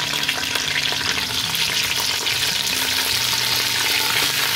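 Raw chicken pieces sizzling in hot oil in a pressure cooker: a steady frying hiss, with small clicks and knocks as the pieces are laid in by hand.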